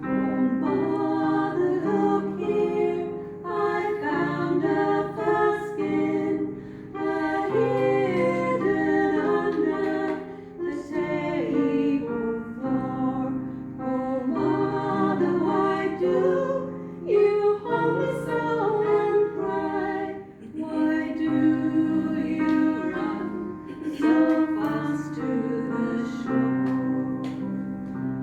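Music: several voices singing a folk ballad together in harmony, in long sustained phrases.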